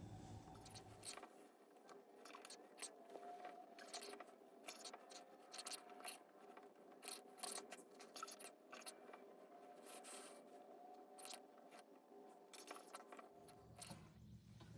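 Faint rustling and scraping close to the microphone: a string of short, irregular clicks and scratches.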